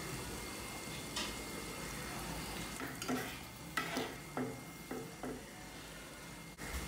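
Food frying and sizzling in a pan while it is stirred, with a run of short scrapes of the stirring utensil against the pan in the middle of the sizzle.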